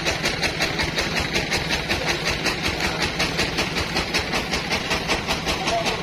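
Band sawmill machinery running steadily, with an even rhythmic pulse of about four beats a second over a hiss and a low hum.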